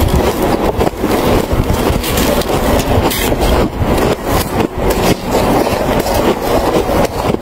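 Close-miked crunching of packed snow being bitten and chewed: a dense, unbroken run of quick crisp crunches.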